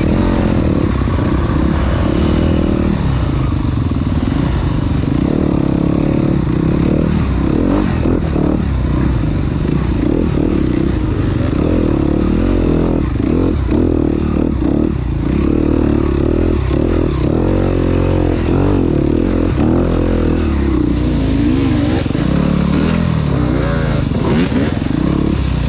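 Dirt bike engine revving up and down under load while climbing a rocky trail, its pitch rising and falling with the throttle, with occasional knocks and clatter from the bike over the rocks.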